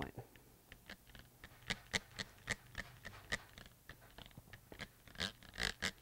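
Trigger spray bottle misting water, squeezed over and over in short squirts, roughly two a second.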